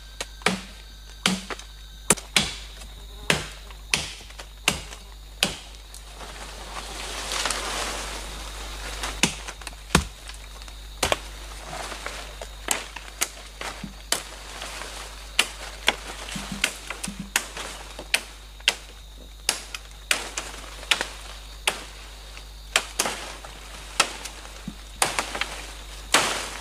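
A blade chopping into green saplings: sharp, separate hacks, about one a second and at times quicker. A rustle of leaves and branches swells and fades about seven seconds in, as a cut sapling comes down through the foliage.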